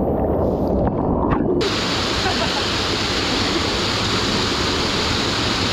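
Small waterfall in a rocky mountain stream rushing close to the microphone, a steady loud roar of water. It sounds dull at first, then suddenly brighter about a second and a half in.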